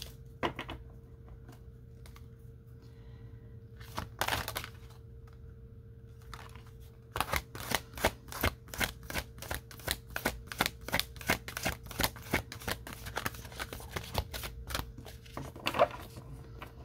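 A deck of oracle cards being shuffled by hand: a few scattered taps, then from about seven seconds in a quick, even run of card clicks and slaps, about three a second. A faint steady hum runs underneath.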